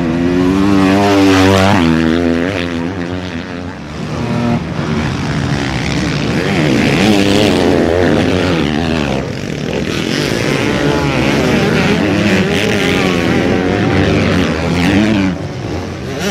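Several motocross dirt bike engines revving hard, their pitch rising and falling as the riders work the throttle and shift over the jumps, with overlapping engine notes as bikes pass one another.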